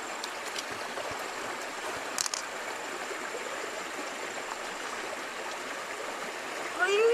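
Shallow stream running steadily, an even rushing of water, with a brief sharp click about two seconds in.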